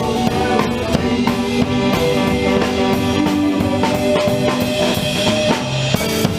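Live rock band playing: drum kit keeping a steady beat under electric guitar.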